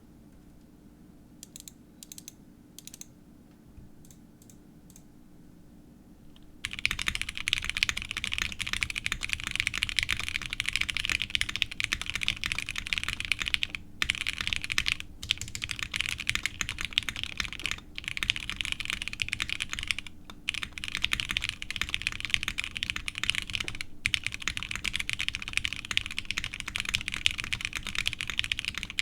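Custom 7V mechanical keyboard, plateless with a gasket-mounted PCB, fitted with lubed NovelKeys Silk linear switches and Geekark keycaps: a few separate keypresses, then from about seven seconds in, fast continuous typing with a few short pauses.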